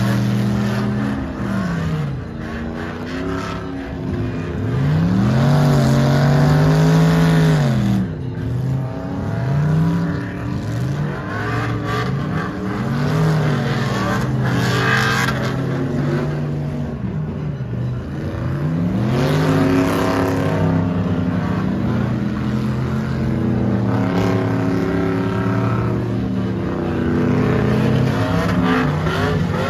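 Pickup truck engine revved again and again, its pitch climbing and falling with each rev. Some revs are held high for a few seconds.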